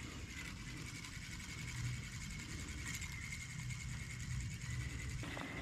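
Spinning reel being cranked steadily, its gears and rotor giving a quiet, rapid mechanical whirr as the line is wound in.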